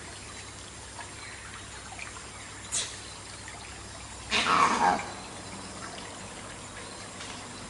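Sykes' monkey call: one raspy call, about half a second long, sweeping downward in pitch, a little over four seconds in. A steady background hiss runs under it, with a brief sharp high click near three seconds.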